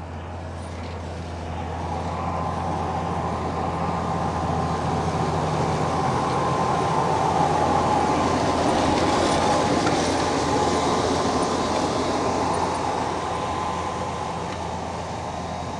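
Tractor and Weaving GD4801 seed drill working past: engine running under a dense mechanical rattle, growing louder to a peak about halfway through and easing off again as it moves away.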